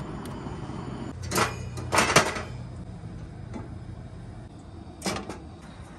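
Cookware being handled for cooking, with a few sharp knocks and clatters of a skillet and utensils: one about a second and a half in, a quick pair around two seconds, and another about five seconds in. A steady low hum runs underneath.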